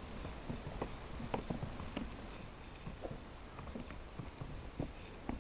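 Computer keyboard typing: faint, quick, irregular key clicks.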